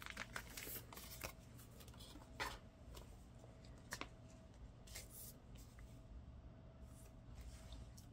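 Faint rustling and light clicks of photocards being slid into and pressed into the clear plastic pockets of a binder page, scattered handling sounds mostly in the first half.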